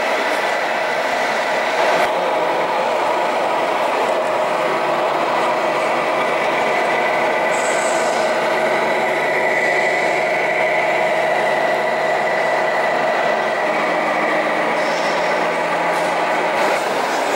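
Radio-controlled scale model trucks running, a steady mechanical hum with a continuous whine.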